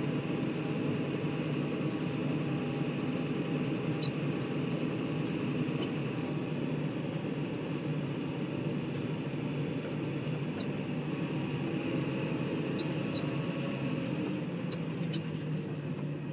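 John Deere tractor engine running steadily, with a few faint clicks over the drone.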